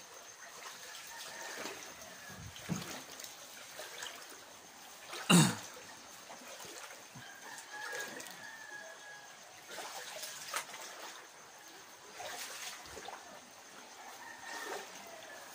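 Floodwater trickling inside a flooded house, with a single sharp knock about five seconds in.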